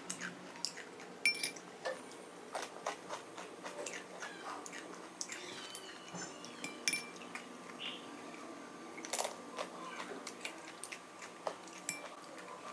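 A metal spoon clinking and scraping against glass bowls as salsa is scooped onto tortilla chips, in scattered short sharp clicks.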